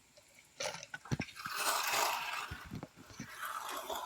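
A hand trowel scraping across a wet concrete slab as it is smoothed, one drawn-out rasp starting about a second and a half in, with a few light knocks before it.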